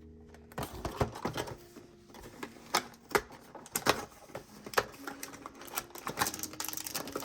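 A Disney Doorables blind package being handled and opened by hand, making a run of irregular sharp clicks and crinkles of cardboard and plastic packaging.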